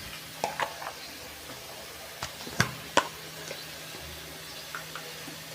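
A few light, sharp clinks of a spoon against a kadai, a couple near the start and three around the middle, over a faint steady hiss from the frying tomato masala.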